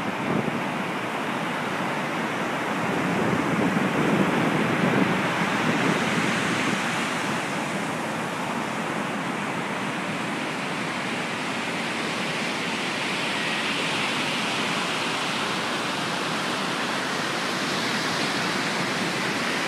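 Ocean surf breaking and washing up a sandy beach: a steady rushing roar that swells for a few seconds about four seconds in.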